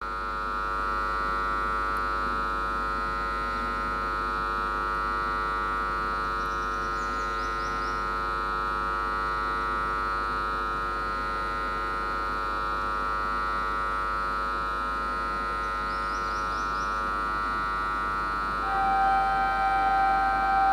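A steady hum of several tones, then about nineteen seconds in the approaching WAP-7 electric locomotive's horn starts a long, steady blast.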